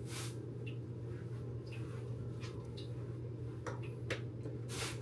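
A steady low hum in a small room, with a few brief clicks and rustles of handling at the start and in the last couple of seconds.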